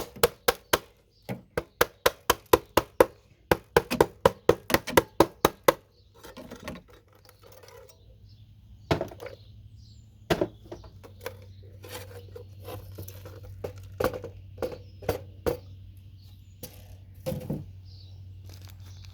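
Hammer blows knocking RAM slots off a computer motherboard: a fast run of sharp strikes, about three or four a second, for the first six seconds, then slower, softer knocks and taps. A steady low hum sets in about eight seconds in.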